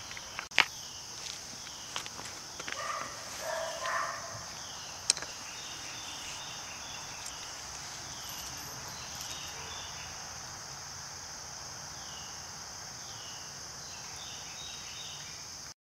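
A steady high-pitched insect chorus, with short falling chirps repeating over it. A few sharp clicks, the loudest about half a second and five seconds in, come from hands handling a plastic cup, plastic spoon and small hardener bottle. The sound cuts off just before the end.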